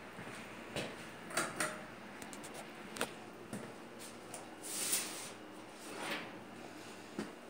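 A handful of light, irregular knocks and clicks with two short rustling swells in the second half: the handling noise and steps of someone moving about with a handheld camera.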